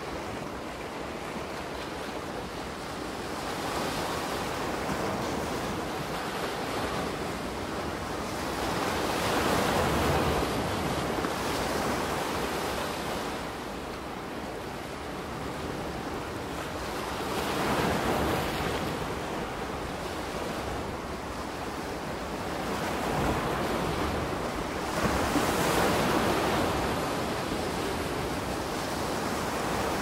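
Soft ocean waves washing onto a beach, the surf swelling and fading four times, several seconds apart.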